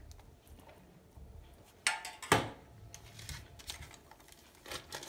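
Two sharp clicks about two seconds in from the metal spoon and small pan used for the melted margarine, then soft rustling of baking paper as the layered dough is lifted and folded.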